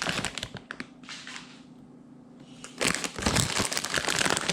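Crinkling, crackling handling noise in kitchen work, in two spells: one in the first second and a denser one from about three seconds in, with a quieter gap between.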